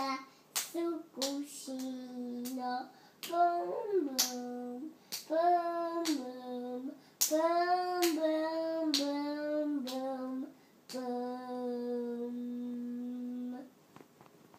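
A child singing alone with no accompaniment, a slow tune of held notes in short phrases, ending on one long held note that stops near the end.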